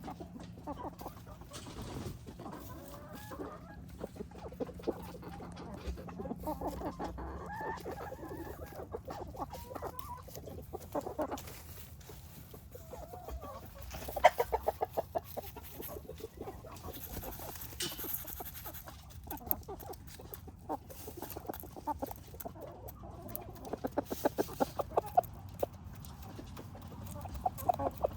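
Barred Rock chickens clucking while they forage and snack, with soft calls throughout and a couple of quick runs of rapid clucks, one about halfway through and one a little before the end.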